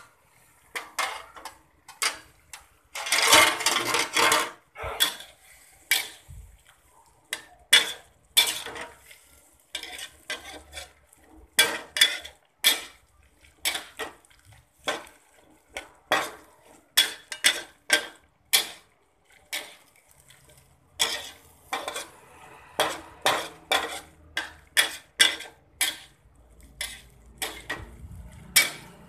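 A spatula scraping and knocking against a pan as broccoli and carrot are stir-fried, in irregular strokes of about one or two a second, with a longer scrape about three seconds in.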